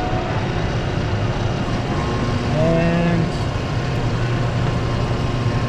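Hunter TCX635 heavy-duty truck tire changer running steadily as its chuck turns the wheel, working the tire bead onto the rim. A faint steady whine joins the hum about two seconds in.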